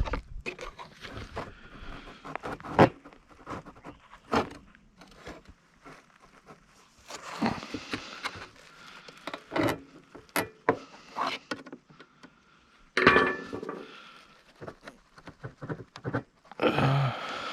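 Irregular clinks, knocks and scrapes of metal parts and hand tools being handled while a safe door is taken apart, with longer scraping stretches about 13 seconds in and near the end.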